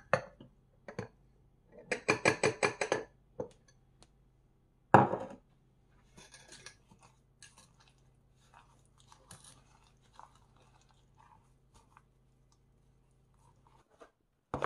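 Crunchy snack being bitten and chewed close by: a run of quick crunches about two seconds in, one loud crunch about five seconds in, then quieter, scattered chewing.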